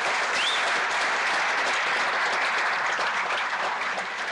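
Audience applauding steadily, a dense mass of hand claps that eases slightly near the end, with a short rising-and-falling whistle about half a second in.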